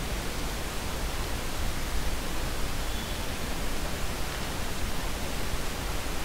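Steady hiss with a low hum underneath: the recording's background noise, with no distinct sound events.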